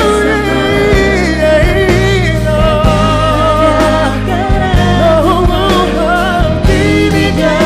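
Live pop band playing, with a singer's long, wavering sung notes and vocal runs over a steady bass line.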